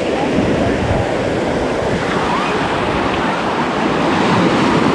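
Sea surf washing steadily onto the shore.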